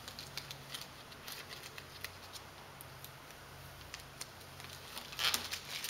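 Adhesive vinyl film being peeled away from around a car's grille emblem: faint, scattered crackles and ticks, with a louder burst of crinkling about five seconds in.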